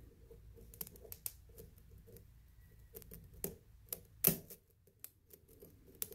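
Faint, irregular metal clicks and ticks of a lock pick working the pins inside a pin tumbler lock under a tension wrench, with one louder click about four seconds in.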